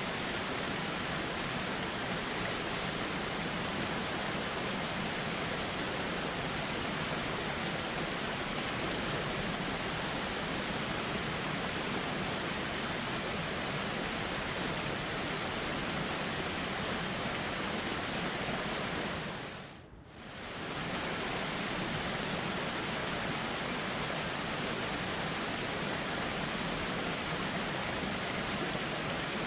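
Steady flowing water of a calm river, an even wash of sound. About two-thirds of the way through it fades down briefly and comes straight back.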